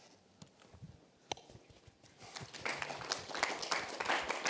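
Audience applause. After a quiet start with a few scattered small knocks, it begins about halfway through and builds.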